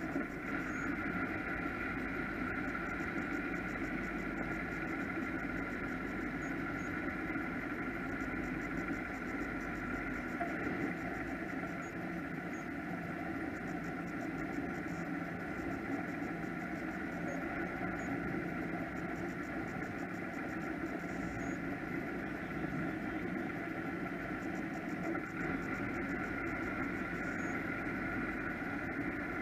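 Offshore powerboat engines idling, a steady even sound with no revving.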